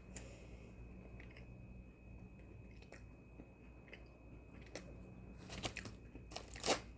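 Faint chewing of an Oreo sandwich cookie, with a few louder crunchy sounds near the end.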